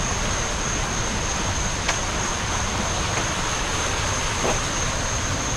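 Steady rushing of a shallow river flowing over rocks. A thin, steady high-pitched tone runs above it.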